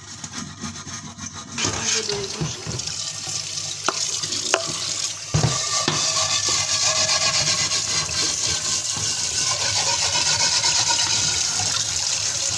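Scrubbing and a few knocks against a frying pan in a stainless steel sink. Then, from about five seconds in, kitchen tap water runs steadily onto the pan as it is rinsed and scrubbed with a sponge.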